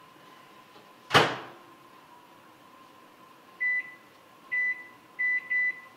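Microwave oven door shut with a single sharp knock about a second in, then its keypad beeping as the buttons are pressed: one short beep a little past halfway, another a second later, and two quick beeps near the end, setting it to heat the food.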